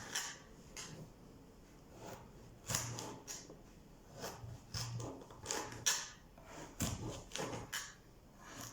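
Knife chopping vegetables into cubes on a cutting board: a dozen or so irregular, sharp knocks of the blade against the board.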